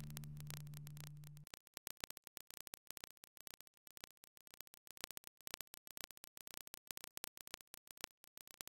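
The low held chord of background music fading and stopping about a second and a half in, followed by near silence with faint, scattered crackling clicks.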